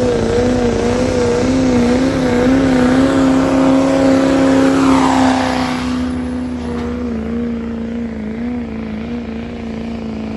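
Diesel pickup truck engine at full throttle, pulling a weight-transfer sled, holding a loud, steady, slightly wavering pitch. The truck passes close about five seconds in with a falling pitch, and the engine is quieter as it moves away.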